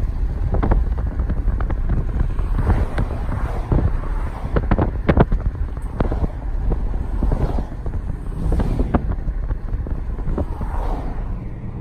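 Road noise inside a moving car: a steady low rumble from the tyres and engine, with scattered short knocks and clicks, the loudest about five seconds in.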